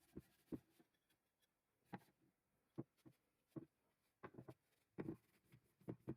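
Faint, irregular light taps and knocks, about one or two a second, as of small hand work or handling of tools and parts.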